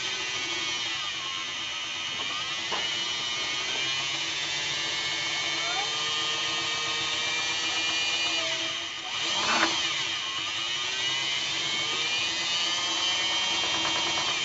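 Homemade scroll saw running steadily, its motor and reciprocating blade giving a held mechanical whir with several steady tones. It dips briefly and then spikes louder about nine and a half seconds in.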